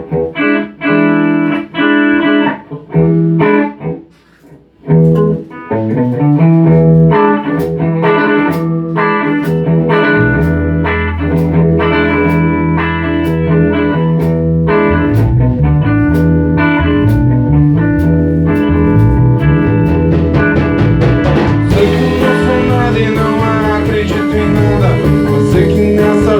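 A band rehearsing a song's instrumental intro. It opens with separate strummed guitar chords with short gaps between them, a bass comes in about ten seconds in, and cymbals join a few seconds before the end.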